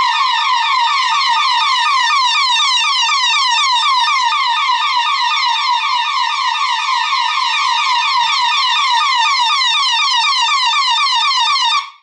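RegalSafe FS50 intruder alarm siren sounding in full alarm, set off by a PIR detector while the system was fully set: a loud, fast warbling tone of about six sweeps a second. It cuts off suddenly near the end as the code is keyed in to silence it.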